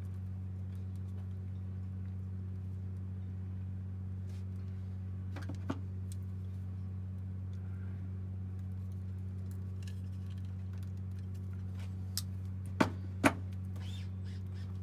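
Steady low hum with sharp metallic clicks of wire-stripping pliers working on a light's wire: one click about six seconds in and three louder ones in quick succession near the end.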